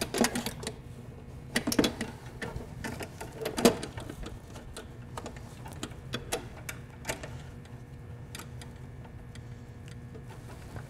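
Irregular clinks and knocks of a metal fuel filter and its mounting bracket being handled and set into place in a car's engine bay. The knocks are louder and more frequent in the first four seconds, then thin out to scattered light clicks.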